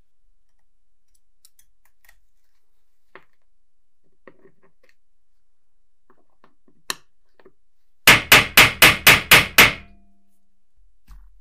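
Seven quick hammer blows, about four a second, near the end, on small steel calendar strips resting on a bench vise's anvil, setting the rivet that joins them. Before that, a few light clicks of the metal parts being handled on a wooden table.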